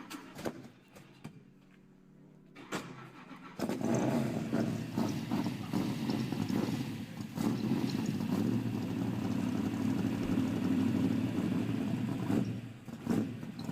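A sports car engine starts about three and a half seconds in and then runs loudly and steadily, after a few faint clicks.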